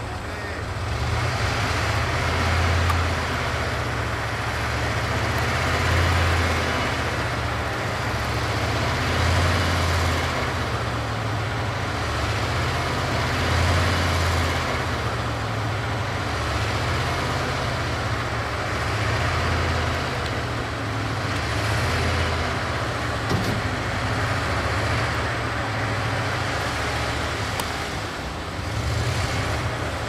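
Hyundai dump truck's diesel engine running at raised revs to drive the hydraulic hoist as the loaded tipper bed rises and the wet soil slides out. The low engine drone swells and eases every few seconds.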